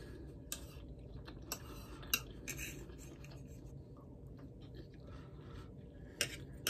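Quiet eating sounds: a metal fork scraping and tapping on a plate and a mouthful of rice and chicken being chewed, with a few light clicks scattered through and a sharper tap near the end.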